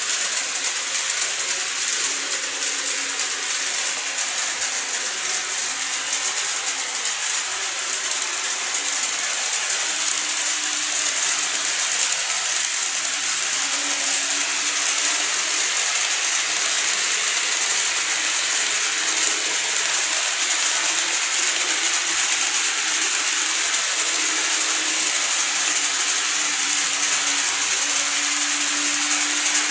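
Model train of a 115 series 1000 EMU running along sectional track: a steady mechanical rattle of wheels on rails with a faint motor whine that rises a little in pitch at times.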